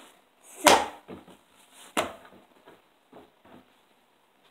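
Grey slime being stretched and laid over a wooden tabletop, with a sharp slap about two-thirds of a second in, another at about two seconds, and a few faint clicks after.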